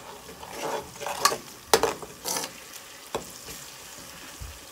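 A spatula stirring and scraping through onions, tomato and green chillies frying in oil in an aluminium pot, a few sharp scraping strokes over a steady sizzle.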